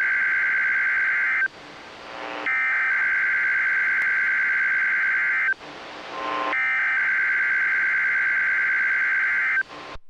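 NOAA Weather Radio Emergency Alert System SAME header for a Required Weekly Test, taken straight from the receiver's audio output: three identical bursts of rapid digital data tones, each about three seconds long, with about a second of receiver hiss between them.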